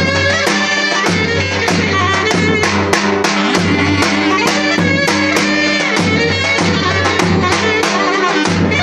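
Turkish folk dance music: a davul bass drum beaten in a steady rhythm under a loud reedy clarinet melody.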